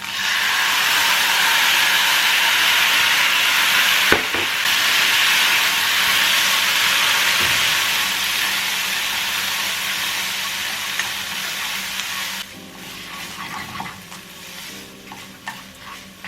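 Tofu frying in a pan, a loud steady sizzle with a single clink of the utensil about four seconds in. The sizzle drops sharply about twelve seconds in, leaving a quieter sizzle with light clicks of stirring.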